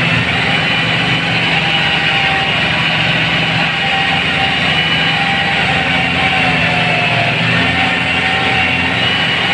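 Compact farm tractor engine running steadily and loudly under load while tilling a wet rice paddy with a rotary tiller, heard close up from a tractor's seat.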